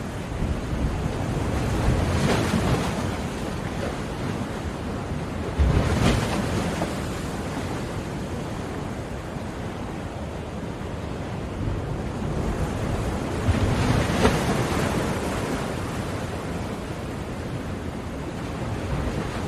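Sea waves washing onto a shore. There is a continuous rushing surf, with louder surges as waves break about 2, 6 and 14 seconds in.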